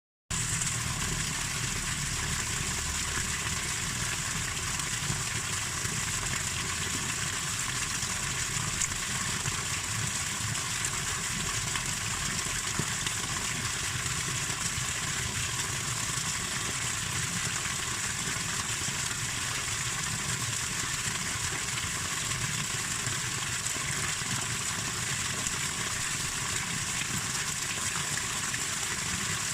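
Waterfall: falling water making a steady, unbroken noise with a low rumble underneath.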